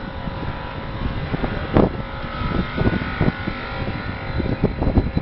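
Edinburgh tram standing at the platform, its electrical equipment giving a steady hum with a few whining tones, under irregular low thumps and rumble.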